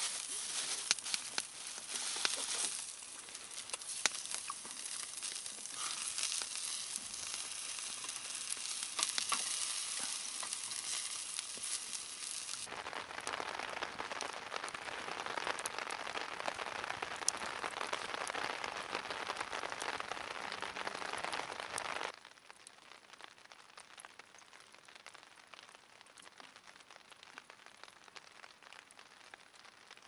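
Meat sizzling on a small tabletop gas grill, with scattered crackles and pops. Later a steady hiss cuts off abruptly, leaving the fainter crackle of a wood fire burning down to embers.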